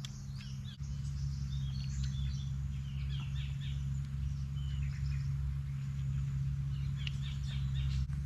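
Birds chirping in short, scattered calls over a steady low rumble.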